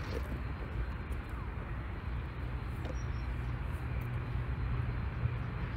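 Steady background noise: a low rumble with an even hiss over it and a few faint clicks.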